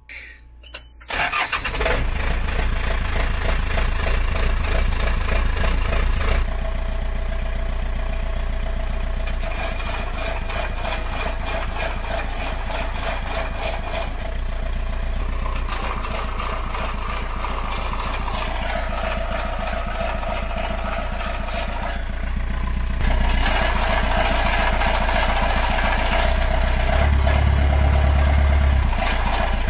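Yanmar 4JH2E four-cylinder marine diesel starting about a second and a half in and then running at idle, heard from beside the turning propeller shaft, its level shifting a few times. The noise in it is engine surge as the transmission loads up with the engine at idle, a sign that the idle speed needs bumping up a little.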